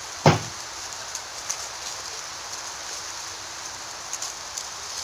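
Steady rain falling, an even hiss with scattered light ticks. A sharp thump a fraction of a second in is the loudest sound.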